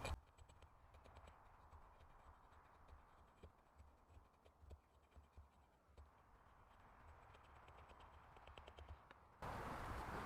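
Faint scraping strokes and light ticks of an axe blade shaving thin curls down a wooden stick to make a feather stick, over near silence.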